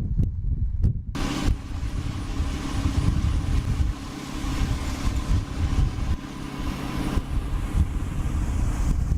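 A large engine running steadily with a loud hissing noise over it; it starts abruptly about a second in, replacing a low wind-blown rumble.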